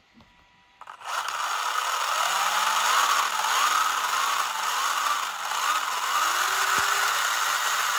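RC car's electric motor and drivetrain spinning up with the wheels off the ground, starting about a second in as a loud whir. The motor's pitch rises and falls over and over as the traction control cuts the throttle back and lets it go again, then steadies to a lower tone near the end.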